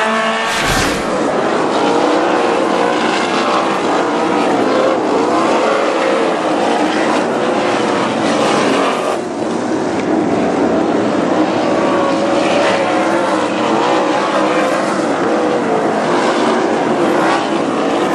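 Several winged sprint cars racing on a dirt oval, their engines running hard, with pitches that rise and fall as the cars accelerate and lift through the turns. There is a brief thump about a second in.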